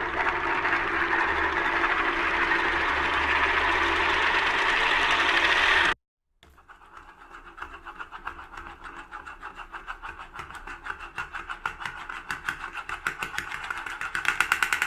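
A spinning top whirring steadily, cut off about six seconds in. After a short gap a second spin whirrs with a pulsing rattle that quickens and grows louder near the end, as the top wobbles toward falling.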